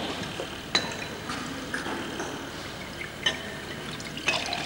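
Wine being poured from several bottles into a row of glass tumblers: a steady liquid trickle, with a few sharp glass clinks.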